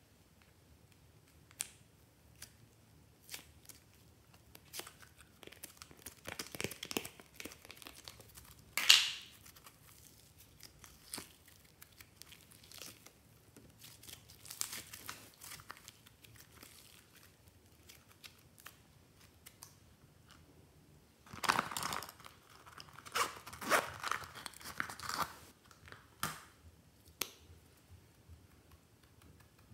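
Green slime handled by hand: pulled from a plastic mould and squeezed, giving sticky tearing and crackling with scattered small clicks. The loudest crackle comes about nine seconds in, and a denser run of crackling comes past the two-thirds mark.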